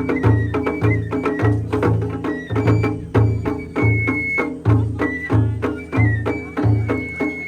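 Japanese festival music (matsuri bayashi): deep drums beating a steady rhythm about twice a second, with sharp percussion strikes and a high, held melody line over them.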